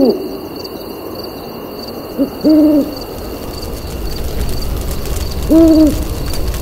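Owl hooting: a short note, then a longer level hoot about two and a half seconds in, and another long hoot near the end.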